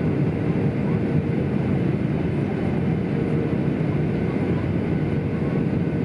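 Steady cabin noise inside a Boeing 737-800: an even rumble of jet engines and airflow, with a faint steady hum running through it.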